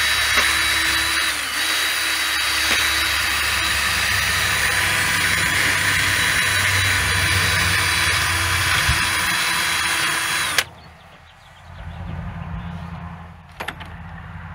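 Cordless drill spinning a worn wire brush against the backhoe engine's thermostat-housing gasket surface, a steady high whir with a grinding hiss as old gasket material is scrubbed off. It stops abruptly about ten and a half seconds in, followed by a faint low rumble and a single click near the end.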